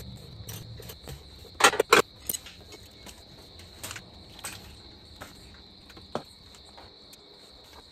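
Crickets trilling steadily in the night background, with scattered sharp metallic clinks and knocks from work on the pickup's hitch and bumper mounts. The two loudest knocks come close together about two seconds in.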